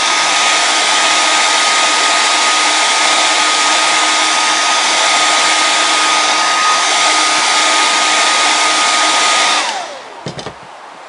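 Hair dryer blowing hot air on freshly applied contact cement to set it: a steady rushing hiss with a constant high motor whine. It is switched off near the end, and the whine falls away as the motor spins down.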